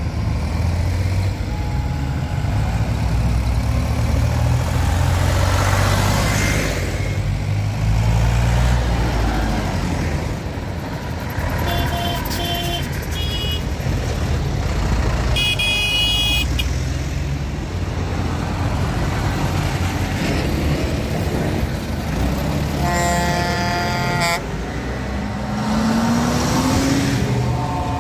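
Diesel farm tractors and a Unimog driving past in a convoy, their engines running steadily with an engine revving up near the end. Vehicle horns toot over them: two short toots about halfway through, a longer higher horn a few seconds later, and a long horn blast shortly before the end.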